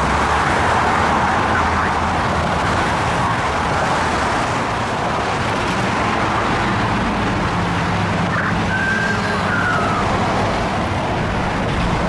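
An emergency-vehicle siren wails faintly, rising and falling once about two-thirds of the way through, over steady traffic noise.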